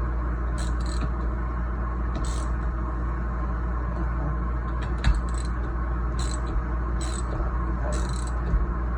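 Short metallic clinks and scrapes of hand tools and steel parts being handled, coming irregularly every second or so, over a steady low hum.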